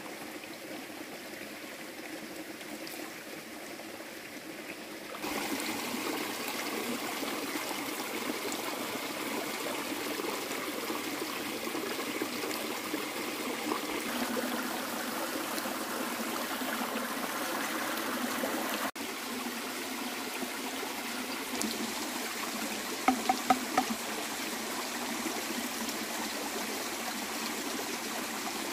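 Shallow stream water running and trickling steadily, a little louder after about five seconds, with a few short sharp knocks about three-quarters of the way through.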